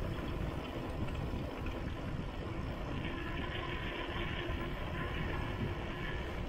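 Steady wind rush over the microphone of a handlebar-mounted camera, with tyre noise from a mountain bike rolling along a concrete road.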